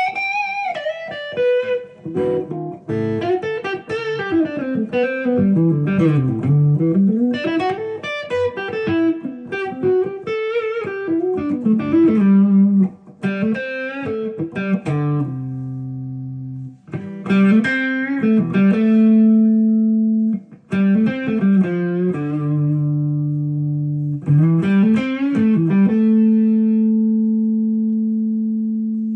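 Epiphone Les Paul Custom electric guitar played: quick runs of single notes with slides and bends for the first half, then notes and chords struck and left ringing for a few seconds each.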